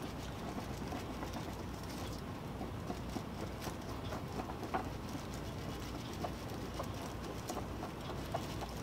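Clear two-part 5-minute epoxy being stirred in a small plastic tray: faint scraping with scattered light taps over a steady low hum.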